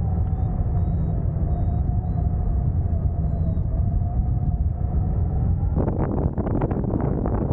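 Airflow rushing over the wing-mounted camera of a hang glider in flight: a steady low rumble of wind on the microphone with a faint wavering whistle. About six seconds in it abruptly turns into rough, crackling wind buffeting.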